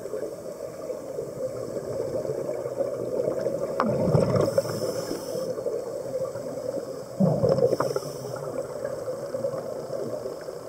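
Underwater scuba-diving sound: a steady low rush of water with two louder bubbling bursts of a diver's exhaled air through the regulator, about four and seven seconds in.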